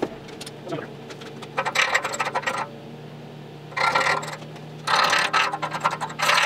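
A steel hand tool scraping and rattling against a clamped steel anvil plate, in three rapid clicking bursts: about a second and a half in, around four seconds, and a longer one about five seconds in. A steady low hum runs underneath.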